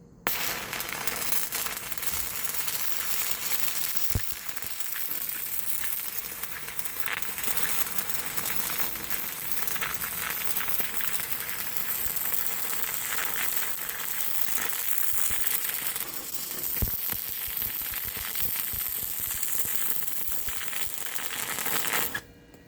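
Sefaspe 205DS multiprocess welder's arc running a bead on 110 V power: a steady, frying crackle with a few sharper pops, which cuts off suddenly near the end.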